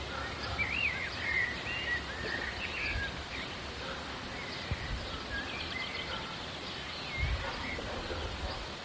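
Outdoor street ambience: small birds chirp now and then over a steady background hiss, with a few low thuds, the strongest near the end.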